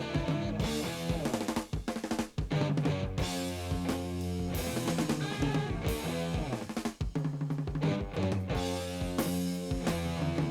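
Rock music with a drum kit and bass, played back through a 1960s Sansui TR-707A all-transistor receiver.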